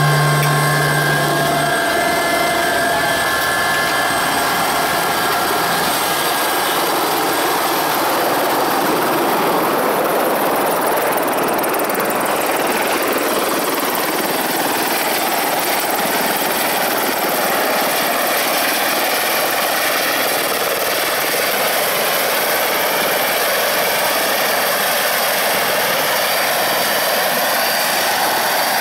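Eurocopter EC120 Colibri helicopter running on the ground with its main rotor turning: a steady turbine whine and rotor noise that holds at an even level throughout.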